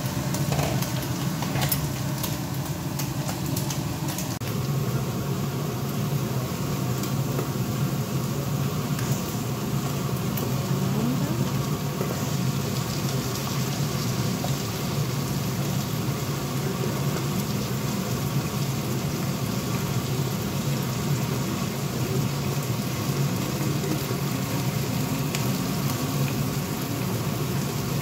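Mushrooms and ground meat sizzling steadily in frying pans over a constant low hum, with a few light ticks from stirring in the first couple of seconds.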